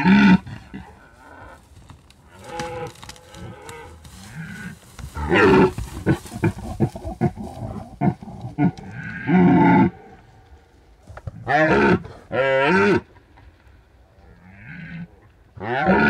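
Red deer stags roaring in the rut: a series of deep, hoarse roars of varying length, some with a wavering pitch, the loudest about five seconds in and then a quick pair near twelve and thirteen seconds. Some roars are fainter, and a run of short choppy grunts follows the loud roar.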